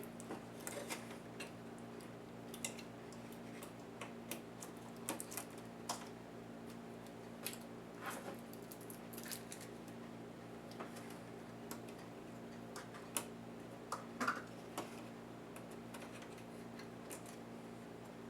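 Irregular light clicks and taps of small tools and laptop parts being handled during disassembly, a few louder knocks about thirteen to fourteen seconds in, over a steady low hum.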